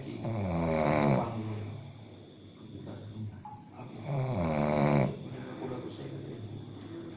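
A man snoring in his sleep: two loud snores about four seconds apart, each lasting about a second, with quieter breathing between them.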